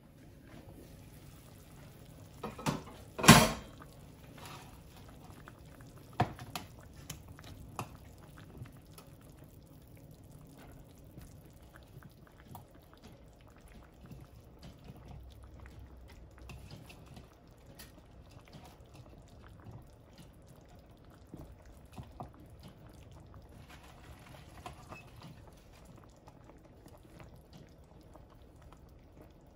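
Chicken broth bubbling at a simmer in a skillet, with a sharp knock about three seconds in and a few lighter clicks after.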